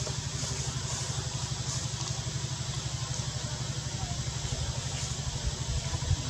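An engine idling, a steady rapid low pulsing.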